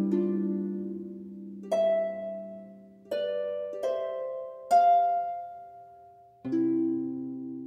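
Background music of slow plucked-string notes, each one ringing out and fading before the next.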